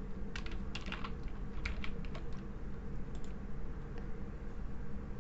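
Typing on a computer keyboard: short clicks in irregular clusters, with pauses between them, over a steady low background hum.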